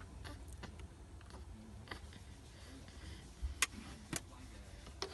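Quiet room tone with a low hum, broken by a few small sharp clicks, the two clearest about half a second apart a little after the middle. No elephant call is heard.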